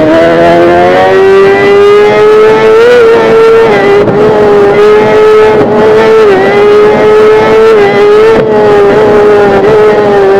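Kawasaki ZX-10R's inline-four engine running hard at high revs under way. The pitch climbs through the first second, then holds steady with a few brief small dips.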